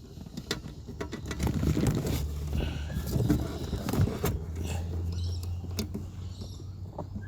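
Plastic wiring-loom connectors being handled and worked together by hand: scattered clicks, taps and rustles as the plug is pushed onto its mating connector.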